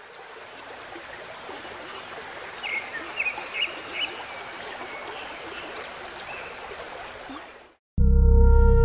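Steady rush of flowing water, like a stream, with a few short high chirps in the middle. It cuts off near the end, and loud, slow synthesizer music with long held chords begins.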